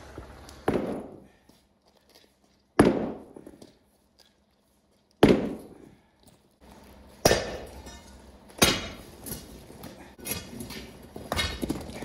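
Heavy steel hand tool striking thick old concrete, breaking it up: about six hard blows roughly every one and a half to two seconds, with smaller clicks of loosened pieces between the later ones.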